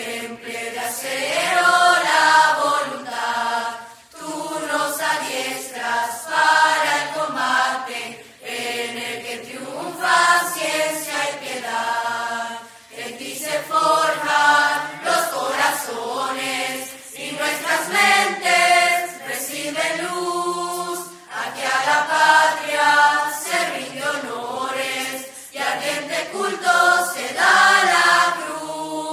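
Choir singing a school hymn in long, held sung phrases, with short breaks between the lines.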